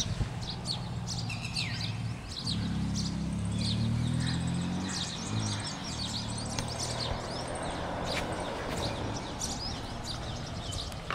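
Small birds chirping in quick, repeated high calls over a low steady hum that swells a couple of seconds in and fades out about two-thirds of the way through.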